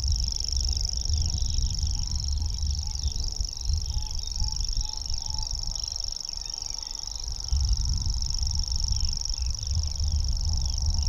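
Grasshopper warbler reeling: one long, unbroken, high-pitched insect-like trill, with other small birds calling faintly behind it.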